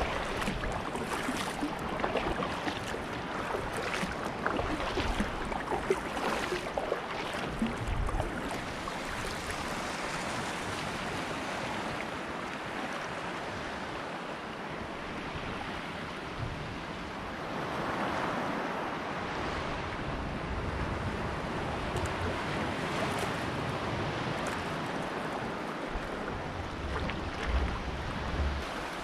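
Sea water washing and splashing around a 10 ft fishing kayak, with irregular splashes over the first several seconds and a wave surging about halfway through. Wind buffets the microphone.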